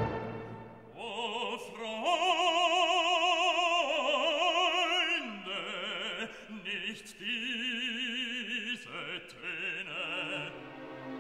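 Nighttime show soundtrack: an operatic voice singing long held notes with wide vibrato over quiet orchestral backing, fading near the end.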